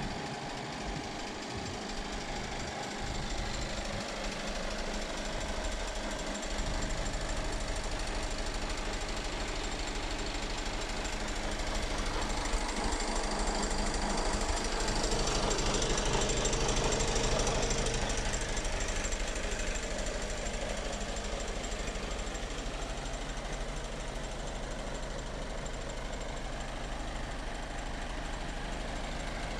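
Mercedes Actros 2548 tractor unit's straight-six diesel engine idling with a steady rapid clatter, growing a little louder for a few seconds midway.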